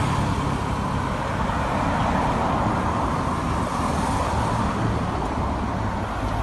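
Steady motor-vehicle or traffic noise: a continuous low rumble with hiss and no distinct events.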